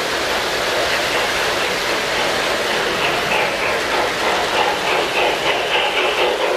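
Model train running along its track, a steady mechanical clatter of wheels and motor, with faint high tones coming and going in the second half.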